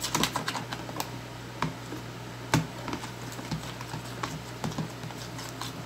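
Spoon stirring slime in a plastic tub, scraping and tapping the sides in irregular small clicks, with one louder knock about two and a half seconds in. A steady low hum from an electric fan runs underneath.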